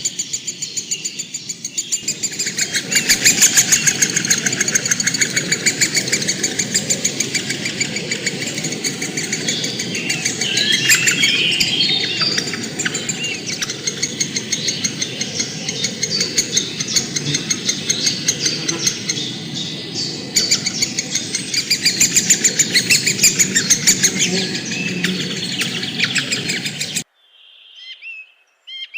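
A large group of birds chirping and chattering together in a dense, unbroken chorus of rapid calls. It cuts off suddenly shortly before the end. A different bird's clear whistled notes then begin faintly.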